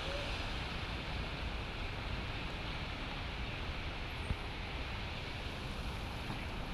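Steady rushing noise of floodwater moving across a flooded street and pavement, with wind rumbling on the microphone.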